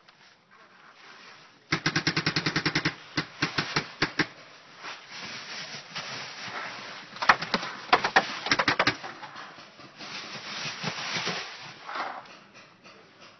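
Paintball markers firing: a fast burst of sharp shots near the start, then scattered single shots and short bursts through the rest of the stretch.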